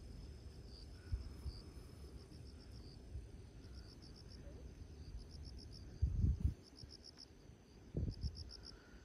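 Insects chirping in repeated short trills of high, quick pulses. There are two brief low rumbles about six and eight seconds in.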